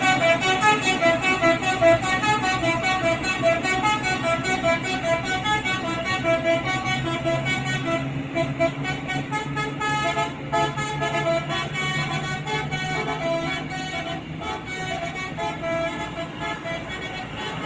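Bus 'telolet' horn, a set of musical air horns, playing a quick tune of stepped notes over a low steady hum.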